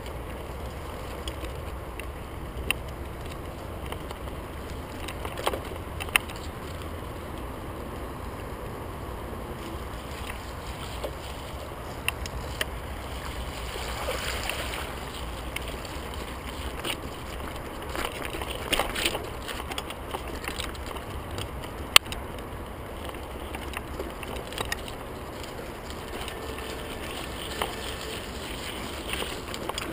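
Merida Matts TFS 800-D hardtail mountain bike ridden over a rough dirt and gravel track, with wind rumbling on the handlebar camera's microphone. The frame and components clack and rattle sharply over bumps, and the tyres splash through puddles around the middle.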